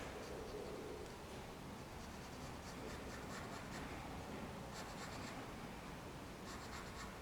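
Faint scratching of a pencil drawing on paper, in several groups of quick short strokes.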